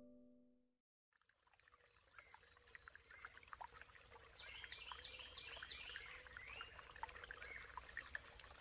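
The last plucked-string note of the music dies away, and after a moment of silence faint stream water fades in, trickling and splashing. About halfway through, a bird sings a short run of quick falling chirps over it.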